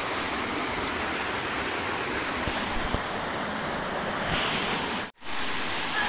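Fast, shallow river water rushing over rocks as a steady noise. It cuts out for an instant about five seconds in, then resumes.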